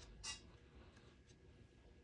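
Near silence: room tone, with one brief soft scratch about a quarter second in.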